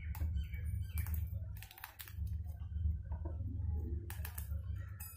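Plastic wheel cutter rolling through a stack of thin cooked dough sheets on a wooden cutting board, giving scattered small clicks and scrapes, over a steady low hum.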